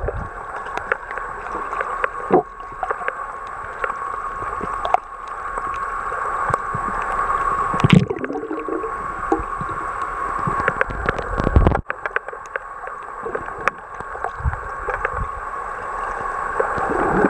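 Sea water heard underwater through a waterproof compact camera: muffled churning and gurgling, with many scattered clicks and knocks and a thin steady tone underneath. There is a louder knock about eight seconds in.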